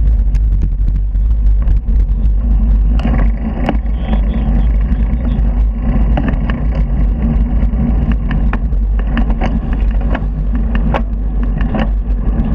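Wind buffeting the microphone of a handlebar-mounted camera on a moving bicycle: a steady, heavy low rumble mixed with road noise. Frequent sharp clicks and rattles run through it as the bike goes over the bumpy road surface.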